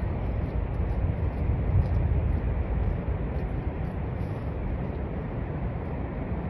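Niagara Falls pouring: a steady, deep rumbling noise, swelling a little about two seconds in.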